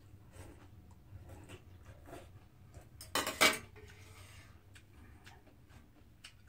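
Metal chopsticks, spoon and bowls clinking on a metal tray during a meal, with one loud ringing clatter about three seconds in. Otherwise there are only faint small clicks and eating sounds.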